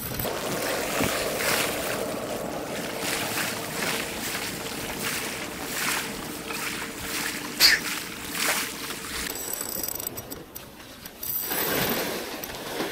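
Sea waves washing against a rocky shore with wind buffeting the microphone, in uneven rushes, with one sharper splash-like burst about two-thirds of the way through.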